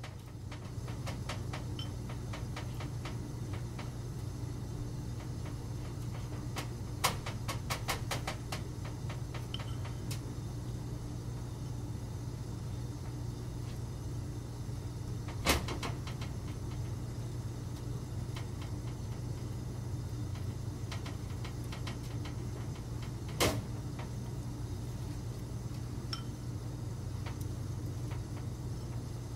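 Light clicks and taps of a red silicone basting brush and a glass bowl of olive oil being handled while oil is brushed onto bread slices on a wire rack, over a steady low hum. A quick run of clicks comes about a quarter of the way in, with a sharper knock about halfway through and another about four-fifths through.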